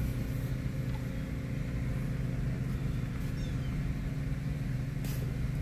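Vehicle engine and road noise heard from inside the cabin while driving slowly: a steady low hum.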